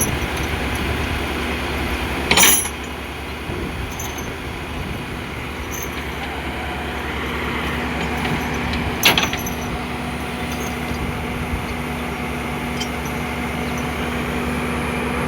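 JCB excavator's diesel engine running steadily, with two sharp clanks, one about two seconds in and one about nine seconds in. A steady hum joins the engine sound from about halfway.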